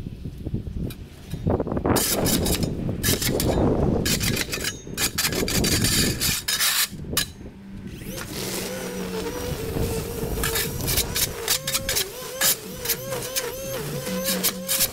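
Clattering and rustling for the first several seconds, then the whine of an electric motor on battery-powered yard equipment, its pitch wavering, with scattered ticks.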